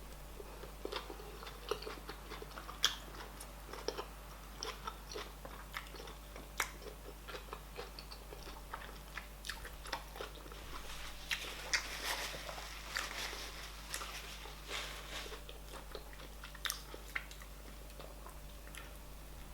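Close-miked chewing and mouth sounds of someone eating fufu with soup by hand: irregular wet smacks and clicks, thicker for a few seconds in the middle.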